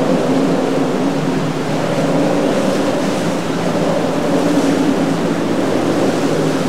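Motorboat engines droning steadily over the rush of waves and water. The engine pitch drifts slightly up and down.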